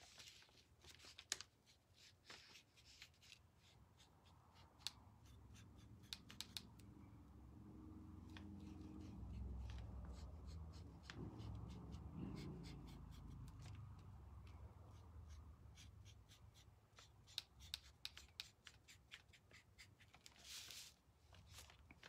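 Faint, scattered small clicks and light scratches of a small paintbrush dabbing and brushing paint onto a thin wooden honeycomb cutout on a table. A low rumble swells and fades through the middle.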